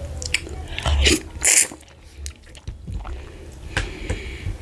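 Close-miked eating of fufu with slimy ogbono soup: wet mouth clicks and smacks, with two louder wet slurping or sucking noises about a second in.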